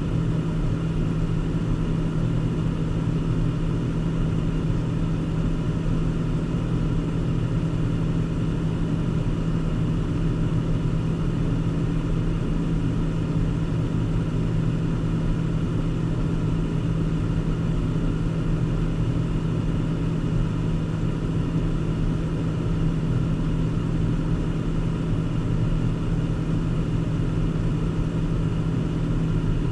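Car being driven: a steady hum of engine and road noise that holds even throughout, with no change in speed.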